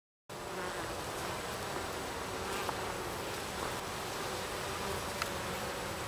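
Many honey bees buzzing together in a dense, steady hum that starts a moment in.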